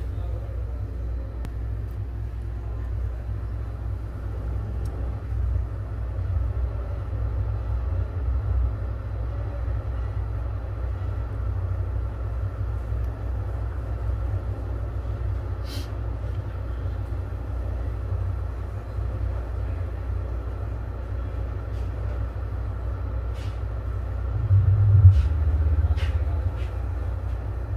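Hot-air rework gun blowing steadily onto the solder paste in a BGA reballing stencil, a constant low rumble of airflow with a faint steady fan tone, melting the paste into new solder balls on the eMMC chip. A few small clicks near the end, with a short louder surge a few seconds before it ends.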